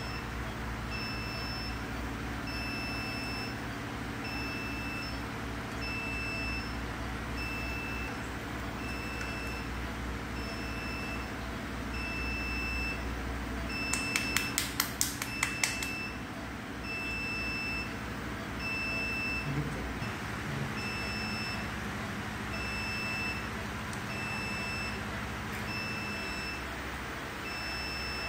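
A high electronic alarm on the NICU's medical equipment beeps about once a second over a low steady hum. About halfway through comes a quick run of about eight sharp clicks: fingers flicking the syringe barrel.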